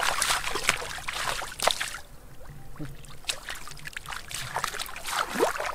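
Bare feet wading and splashing through shallow muddy water. Dense splashing and sloshing for the first couple of seconds, then scattered splashes and drips, and another burst of splashing near the end.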